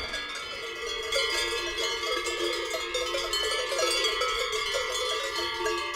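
Many cowbells on a herd of cattle clanking and ringing together as the cows walk, the strikes irregular and overlapping.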